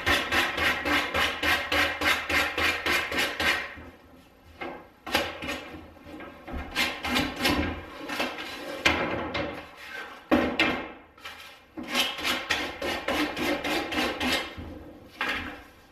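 A hand tool scraped rapidly back and forth across the cut end of a wooden quarter-round trim strip, smoothing it. The strokes come about four or five a second in several runs with short pauses between.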